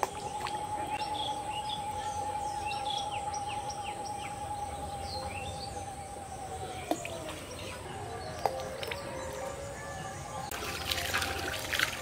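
Birds chirping over a steady held tone that drops in pitch about seven seconds in. From about ten seconds in, water splashing and dripping at the pond's edge.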